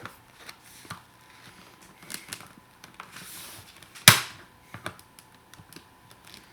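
Scattered plastic clicks and a brief scrape as a car sun visor is worked apart by hand, with one loud sharp snap about four seconds in.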